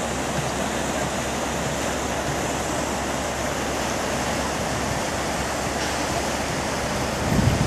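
Steady rush of flowing river water. Near the end, wind starts buffeting the microphone in low rumbling gusts.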